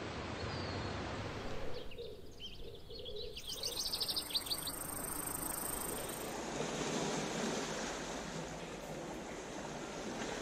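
Calm sea water washing gently at the shore with a steady hiss, and a quick run of bird chirps from about two to four and a half seconds in.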